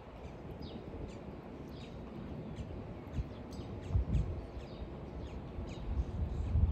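Small birds chirping throughout in short, quick, falling notes. Low dull thuds come about four seconds in and again near the end.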